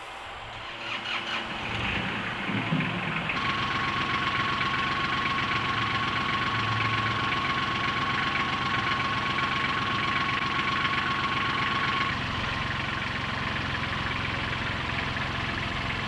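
An engine starting up and then running steadily at idle, with a thin steady whine over it for much of the time; it drops slightly in level about twelve seconds in.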